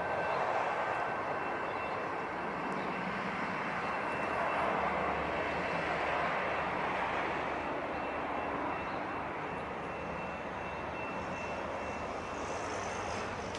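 A steady distant engine drone that swells slightly and eases off again, with a faint steady high whine over it.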